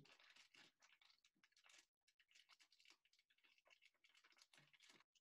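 Near silence: room tone with a few very faint ticks.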